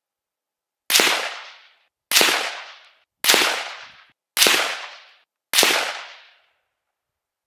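Five shots from a Warwick Firearms WFA1 rifle in .300 Blackout, fired about a second apart, each a sharp crack trailing off in a short echo.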